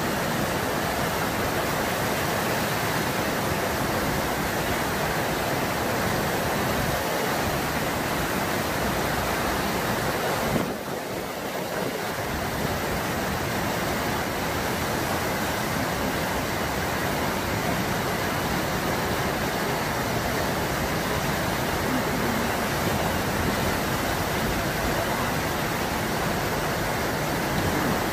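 Steady rushing of the whitewater in the Eisbach's standing river wave, fast water pouring over the step and breaking. It dips slightly for a moment about eleven seconds in.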